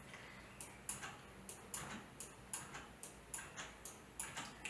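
Faint clicks of a computer keyboard and mouse, about two or three a second, as text is deleted from the fields of an on-screen form.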